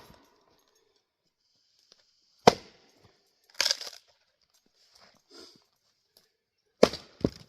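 Axe blows splitting Douglas fir rounds: a sharp chop about two and a half seconds in, a short clatter of wood about a second later, and two more chops close together near the end.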